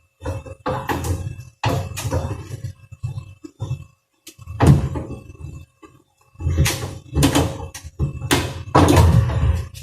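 Irregular knocks, thumps and clatter of hard plastic fridge parts being handled and worked loose, with several louder strikes in the second half.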